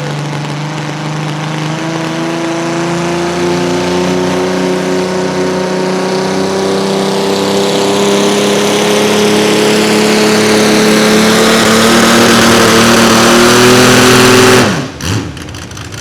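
Naturally aspirated mini rod pulling tractor's engine at full power under load down the track, pitch and loudness climbing slowly for about fourteen seconds, then cutting off suddenly with the revs falling as the driver lets off near the end. The owner reports a really bad engine miss on this last run.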